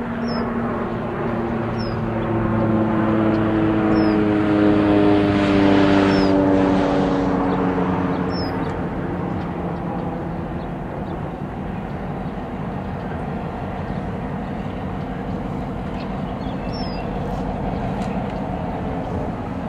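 An airplane passing over, its engine drone falling steadily in pitch and loudest about five or six seconds in, then fading into a low steady rumble. Short high chirps of a bird come every couple of seconds.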